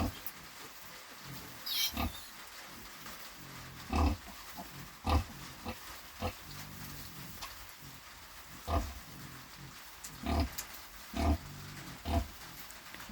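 Sow grunting, about eight short, low grunts spaced a second or two apart and coming closer together near the end: the rhythmic grunting of a sow nursing her piglets.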